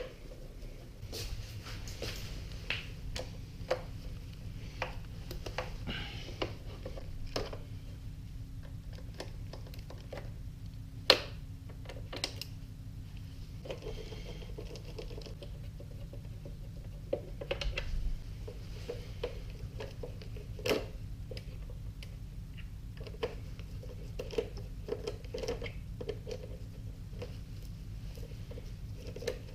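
Hand-tool work on a motorcycle: scattered light clicks and small knocks of a screwdriver turning screws and of parts being handled, with one sharper knock about eleven seconds in, over a steady low hum.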